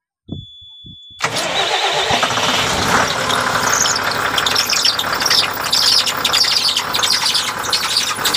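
Diesel engine of an MSRTC bus, heard from beneath at the belt drive, starting about a second in after a steady high warning beep and a few knocks, then running with repeated high squealing chirps from the drive belt. The uploader takes the belt noise for a damaged, cracked belt.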